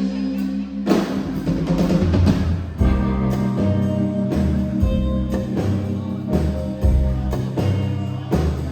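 Live band playing an instrumental passage: a drum kit keeping time with hits across the beat, over changing bass notes and held chords.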